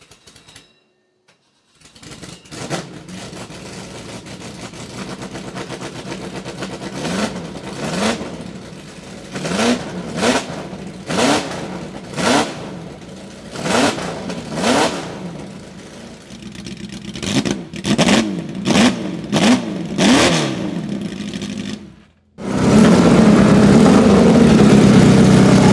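Serenissima MK168's V8 racing engine idling, then blipped repeatedly, about a dozen quick revs each rising and falling back to idle. Near the end it cuts to a louder, steady engine note.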